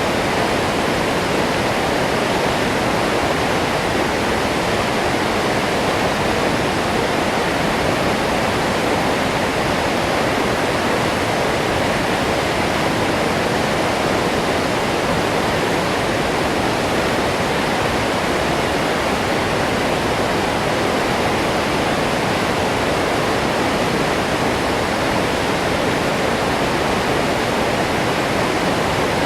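Waterfall: water falling and crashing into the pool below, a steady, unbroken rush.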